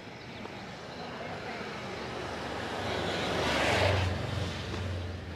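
A motor vehicle passing close by on the street: its noise builds to a peak about four seconds in and then fades, with a low engine hum beneath it.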